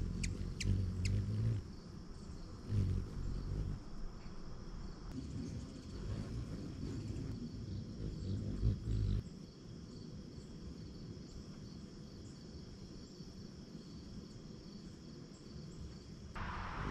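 Outdoor summer ambience: insects chirping steadily in a fast, even pulse, over a low rumble on the microphone that swells and fades. A few sharp chips come in the first second.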